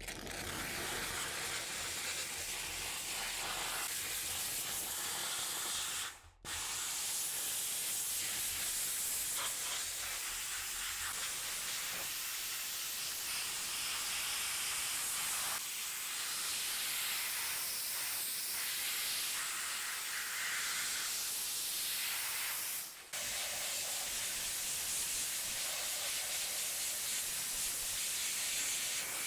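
Water spraying in a steady hiss, broken twice by brief gaps, about six seconds in and about two-thirds of the way through, with a low hum under it for the first ten seconds or so.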